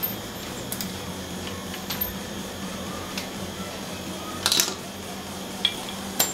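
Scattered metallic clicks and taps of pliers working at a stuck faucet fitting, over a steady low hum; the loudest is a short cluster of clicks about four and a half seconds in.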